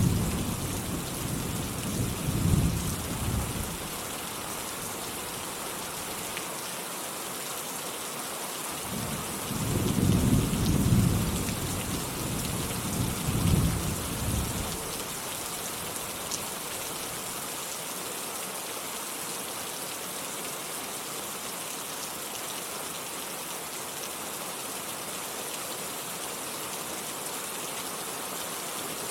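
Steady rain falling, with thunder rumbling twice: once in the first few seconds and again, longer, around the middle.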